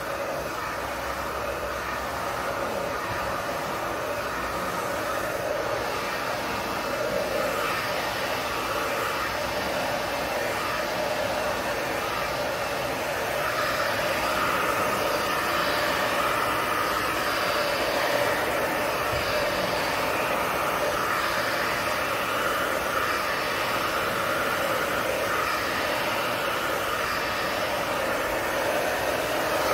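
Handheld hair dryer blowing steadily on the hair. Its tone wavers as it is moved about, and it gets a little louder from about thirteen seconds in.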